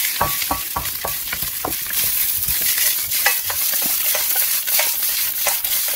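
Egg fried rice sizzling in a wok as a wooden spatula stirs and scrapes it, with frequent irregular scrapes and knocks against the pan over the steady frying hiss.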